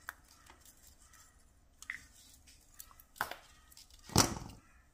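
Jewellery-making tools and wire being handled: a light snip of side cutters through thin craft wire at the start, then scattered soft clicks and two sharp clacks about three and four seconds in, the second the loudest.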